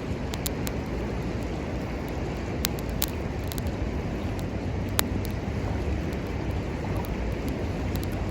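Small wood fire crackling, sharp irregular pops and snaps, over a steady low rushing background.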